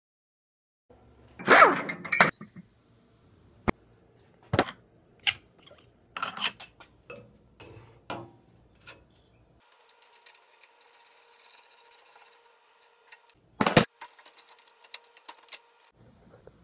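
Metal clicks, clinks and knocks of a coil-spring strut assembly and its strut spring compressor being handled and adjusted. The loudest clanks come in a cluster about a second and a half in and as a single sharp knock near the end, with lighter scattered clicks between.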